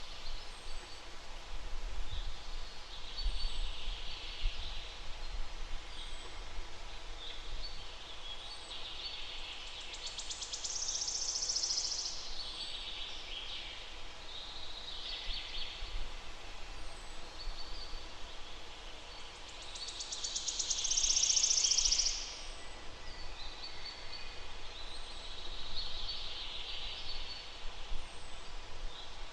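Songbirds singing in a forest: high song phrases of a second or two each, repeating every few seconds, over a faint low rumble.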